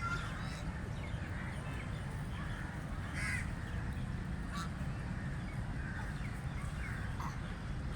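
Mallard ducks calling as they feed, in short scattered calls, one of them stronger about three seconds in, over a steady low rumble.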